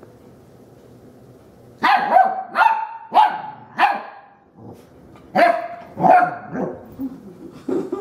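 Young Rottweiler puppy barking at the vacuum cleaner: a bout of four quick barks starting about two seconds in, a short pause, then three or four more near the end.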